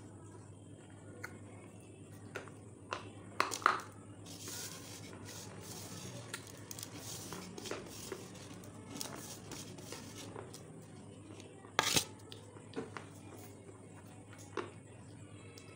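Handling noises: a few sharp clicks and knocks, the loudest about three and a half seconds and twelve seconds in, with a stretch of rustling in the middle, over a steady background hum.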